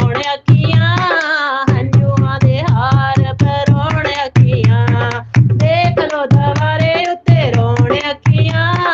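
Punjabi devotional bhajan: a vocalist singing with ornamented, wavering pitch over a steady tabla-and-drum rhythm.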